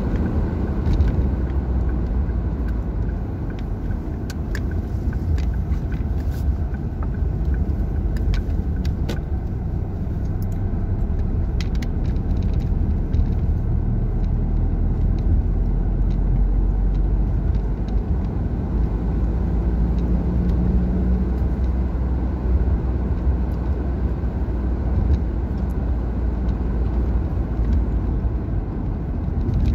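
Steady low rumble of engine and tyres heard from inside a moving car, with a few light clicks in the first half.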